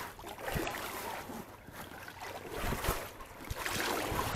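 Paddles of an inflatable two-person kayak dipping and splashing in the water with each stroke, with a few short low knocks in between.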